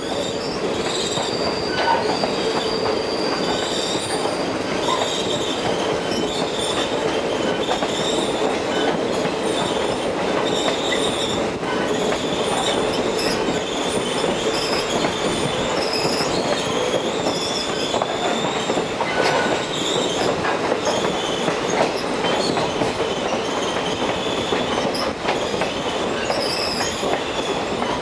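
Railroad cars' steel wheels running steadily on the rails with a continuous rumble, the wheel flanges squealing in high, on-and-off tones throughout.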